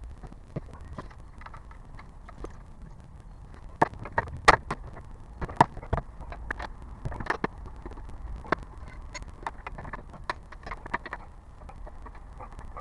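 Irregular clicks and knocks from a Hyundai Grandeur HG's body or suspension over a steady low road rumble, loudest and most frequent about four to seven seconds in. This is the front and rear noise the owner is recording.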